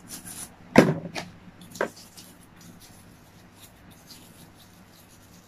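A few sharp knocks and clicks of a plastic baby feeding bottle being handled. The loudest comes about a second in, with two lighter ones over the next second, then only faint handling.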